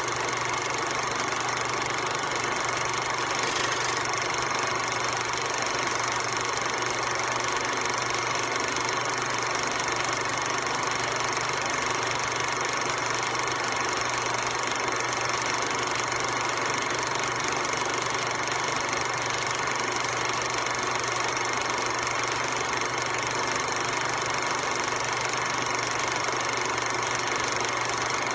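16 mm film projector running steadily, its motor and film-advance mechanism making an even mechanical whir and clatter that does not change.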